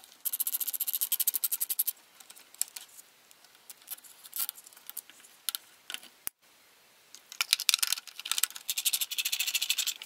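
Nylon zip tie being pulled tight around the Keurig's water hose: a fast run of ratchet clicks in the first two seconds and another from about seven seconds in, with scattered light plastic clicks and knocks between them.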